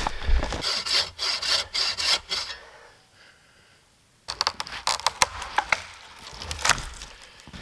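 Hand saw cutting into the trunk of a standing dead maple in quick back-and-forth strokes, then, after a short break, sharp cracks and snaps of wood with a louder snap about two-thirds of the way in as the notched tree gives way.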